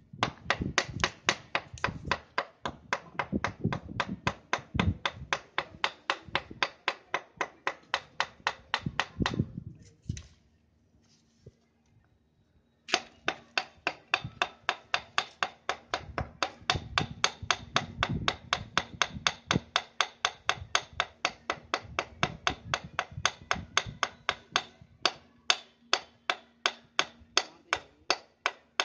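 Rapid hammer blows on a chisel driven into a concrete paver road, about four sharp ringing strikes a second. The hammering stops for about three seconds a third of the way in, then resumes at the same pace.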